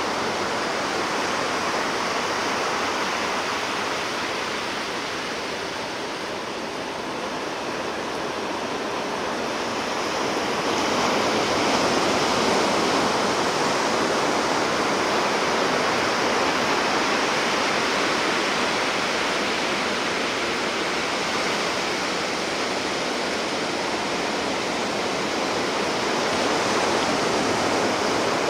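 Sea surf washing on the shore: a continuous rushing of water that eases about six seconds in and swells up again around eleven seconds.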